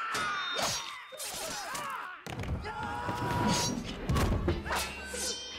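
Katana sword-fight sound effects: a run of sharp impacts and thuds, among them a body landing on a glass floor, with metallic ringing tones lingering after several hits. A low rumble runs underneath from about two seconds in.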